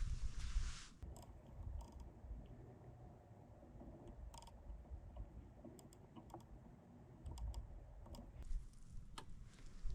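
Scattered faint clicks and small rustles over a low, steady rumble, with a louder rushing noise in the first second.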